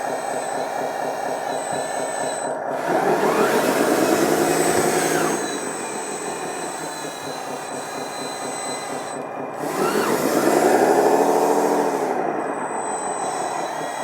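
Sound module of a 1:14-scale RC bulldozer playing a simulated diesel engine at idle, revving up and back down twice, about three seconds and ten seconds in, as the model is driven.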